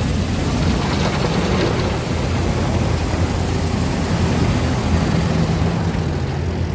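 Automatic car wash heard from inside a van: rotating brushes and water spray beating against the rear window over a loud, steady low rumble.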